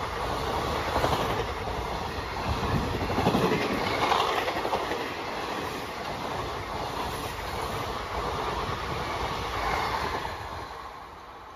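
Passenger coaches of an express train rushing past at high speed, the wheels clattering over the rails. The sound falls away near the end as the last coach goes by.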